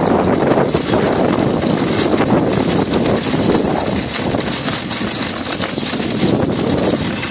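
Metal shopping cart rolling over asphalt, its wire basket and plastic-and-metal frame rattling loudly and continuously over the pavement.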